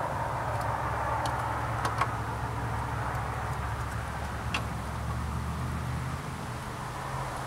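A steady low hum like a running engine, with a few faint sharp clicks about 2 and 4½ seconds in.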